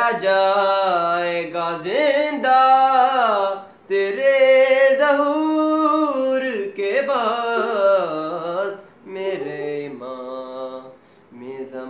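A man singing a manqabat unaccompanied, drawing out long ornamented phrases that waver in pitch. He breaks briefly for breath about four seconds in and again about nine seconds in.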